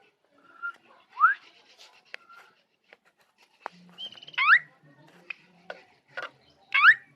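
Black drongo singing: loud rising whistled notes, three of them, spaced among sharp clicks and short chipping notes.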